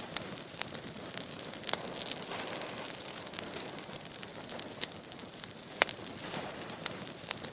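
Vegetation fire burning, a steady rushing hiss with irregular sharp crackles and pops, the loudest pop near the end.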